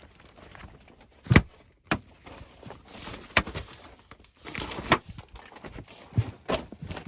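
Irregular knocks and scuffs of someone moving about and handling things. The loudest is a sharp knock about a second and a half in, with a cluster of smaller ones in the middle and a few more near the end.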